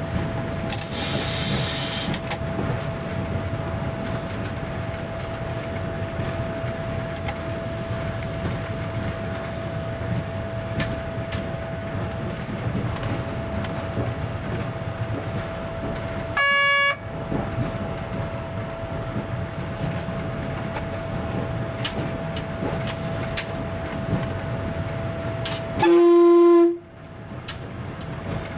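DR 'Ferkeltaxe' diesel railbus running along the branch line with steady rumbling running noise and a steady whine. Its horn sounds twice: a short higher note about sixteen seconds in, and a louder, lower note near the end.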